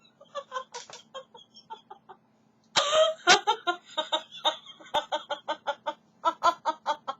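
A person laughing in runs of short, quick pulses, about five a second, with a louder burst about three seconds in.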